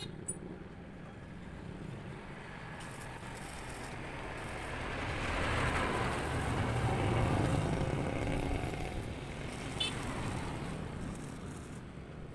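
A motor vehicle passing on the road: its engine and tyre noise swell over several seconds, are loudest about halfway through, then fade away.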